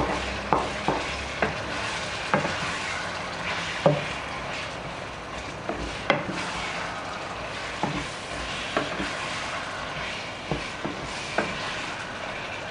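Shrimp, octopus and scallops sizzling in olive oil in a sauce pan under a steady hiss, with a stirring utensil knocking and scraping against the pan at irregular intervals of about a second as tomato paste is mixed in.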